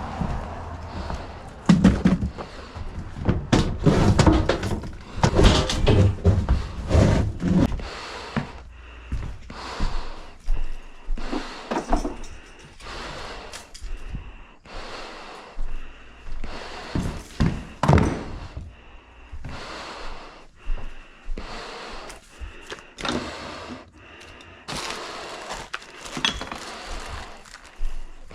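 Irregular thumps, knocks and clatter of objects being handled, dropped and set down, busiest and loudest in the first several seconds.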